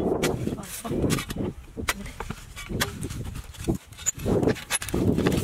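Flat-bladed steel digging bar striking and prying into dry, hard-baked earth: a run of irregular knocks with crumbling soil and clods falling between them.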